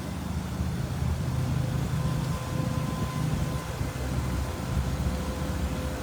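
Strong wind buffeting the microphone, a heavy low rumble that swells and eases in gusts.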